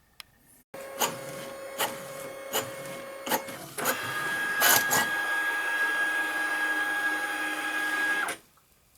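Brother MFC-J870N inkjet printer mechanism running. Under a second in it starts with a steady motor hum and a click about every second. From about four seconds in, a louder, higher whine takes over and then stops abruptly near the end.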